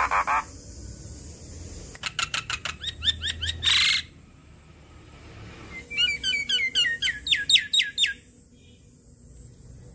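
Javan myna singing: two runs of rapid, repeated rising chirps, the first ending in a harsh screech about four seconds in, the second starting about six seconds in.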